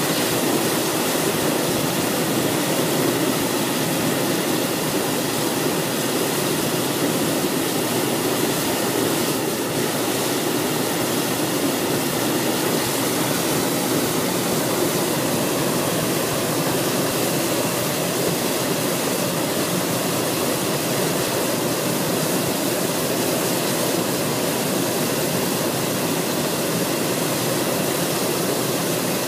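Hot air balloon's propane burner firing continuously, a steady even blast heating the air in the upright envelope for take-off.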